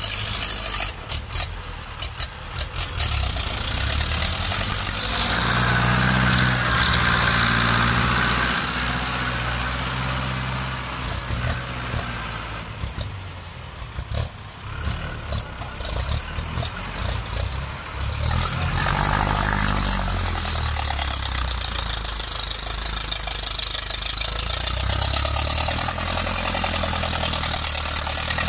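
Ford 6610 and 6600 tractors' three-cylinder diesel engines working under load through loud exhaust pipes while pushing rocky dirt with a front blade. The engine note rises and falls with the load, and is quieter for a few seconds in the middle.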